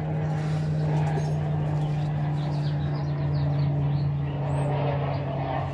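A steady low machine hum with a single pitch, dropping slightly near the end, while small birds chirp repeatedly in the background.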